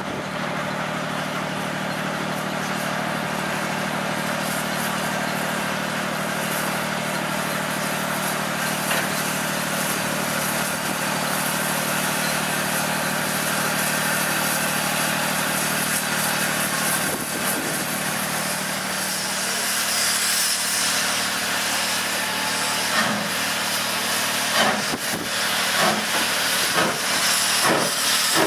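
Steam locomotive No. 47406, an LMS 'Jinty' 0-6-0 tank engine, drawing its train toward the platform with a steady hiss of steam. The hiss grows louder in the last third as it comes close with its cylinder drain cocks open, and in the last few seconds its exhaust beats come through as separate chuffs.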